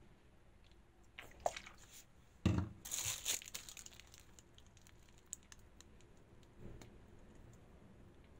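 Cake-assembly handling noises on a worktop: a single knock about two and a half seconds in, followed by about a second of crinkling, with scattered light clicks after.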